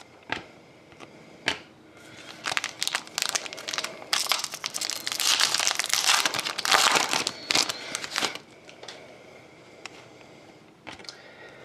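Foil wrapper of a Panini Prizm trading-card pack being torn open and crinkled, a dense crackle that is loudest in the middle and dies away a few seconds before the end. A few short, sharp clicks come in the first two seconds.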